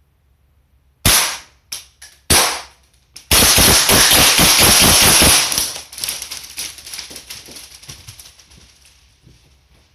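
Airsoft gas pistol firing: two sharp shots a little over a second apart with small clicks between them, then a dense loud burst of about two seconds that pulses several times a second and fades away over the next few seconds.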